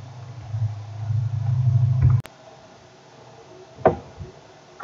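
Low steady hum that stops suddenly with a click about two seconds in. A single short knock follows near the end.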